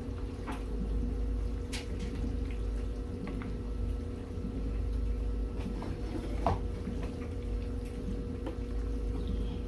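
A spoon stirring a thick, creamy casserole mixture of chicken and melted cheese: wet squishing with scattered clicks of the spoon against the dish, the sharpest about two-thirds of the way through, over a steady low hum.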